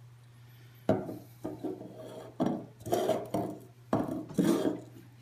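Hard plastic cups knocked and slid on a wooden tabletop: a series of sharp knocks and scrapes, with the clearest knocks about a second in, at about two and a half seconds and near four seconds.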